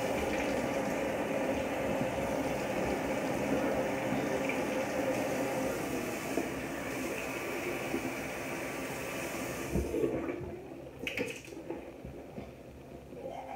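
Bathroom sink tap running steadily, turned off about ten seconds in, followed by the soft scrubbing of a toothbrush on teeth.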